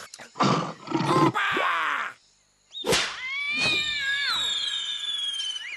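Cartoon sound effects: a loud big-cat roar or yowl from an animated jaguar, then after a short pause a sharp hit followed by a long, slowly falling whistle as something sails through the air.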